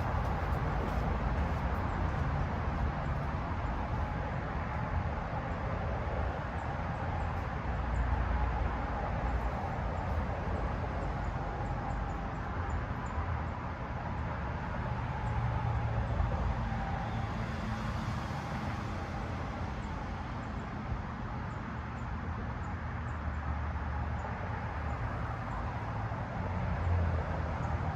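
52-inch Hampton Bay Princeton II ceiling fan running steadily: the rush of air from the blades over a low motor rumble.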